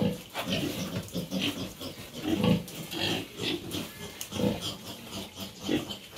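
Pigs grunting in short, repeated calls about every half second.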